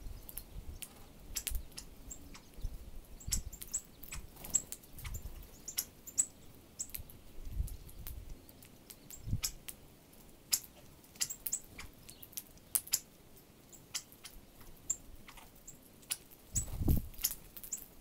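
Northern cardinals and a dark-eyed junco pecking at birdseed on a ledge beside the microphone: an uneven run of sharp ticks and clicks, with short high chip calls. Near the end, a louder flutter of wingbeats as several birds flap up off the seed.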